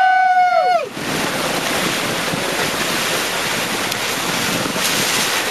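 A loud held whoop of excitement that ends about a second in, then a steady rush of wind and sea with wind buffeting the microphone.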